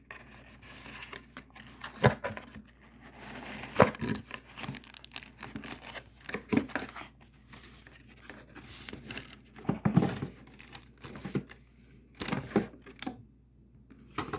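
Packaging being handled by hand while a box is opened: irregular tearing, rustling and crinkling, with a few louder sharp crackles.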